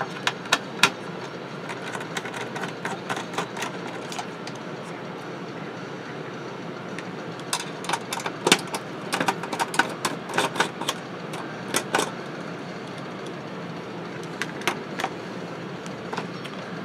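Scattered sharp clicks and light taps of a screwdriver and small screws as the corner screws are taken out of an oscilloscope case. The clicks come in a busy cluster through the middle, over a steady hiss.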